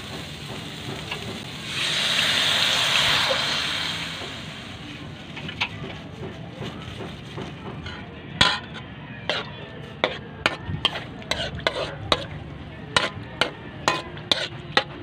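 A milky liquid poured into a hot aluminium wok of sautéed dried small fish, ginger and onion sizzles loudly for about two seconds, then dies down. A metal ladle then stirs the pot, scraping and clinking sharply against the wok over a dozen times.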